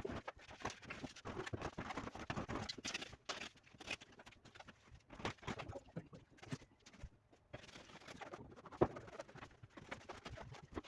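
Hand work with tools and building materials: irregular taps, knocks and scraping, with a sharper knock about nine seconds in.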